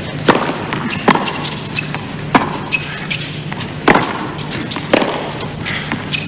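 Tennis ball struck by racquets in a serve and baseline rally: five sharp pops about a second apart. A steady low hum runs underneath.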